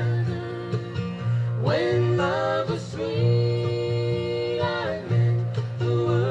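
Music: a slow bluegrass song, acoustic guitar and plucked strings under a held, sliding sung melody line.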